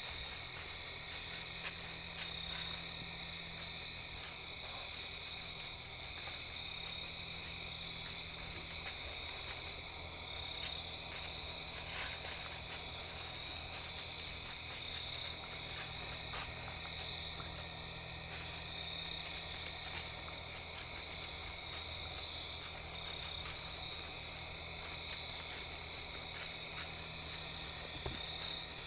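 Crickets and other night insects chirping in a steady, high-pitched chorus, with a faint low steady hum underneath.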